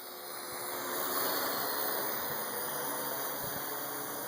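Parrot AR Drone 2.0 quadcopter's four motors and propellers whirring steadily in flight, swelling about a second in as it sets off under autopilot.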